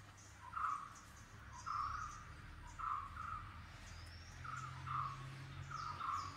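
Birds calling: one repeats a short two-part call about once a second, with fainter high rising chirps from another bird in between.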